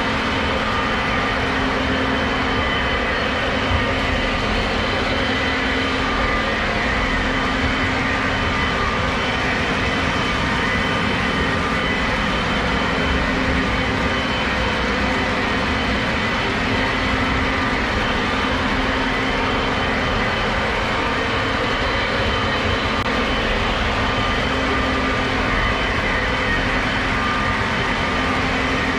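Several Lionel O gauge model trains running at once on the layout's track: a steady, even mix of wheels rolling on rail and motors, with a constant hum through it.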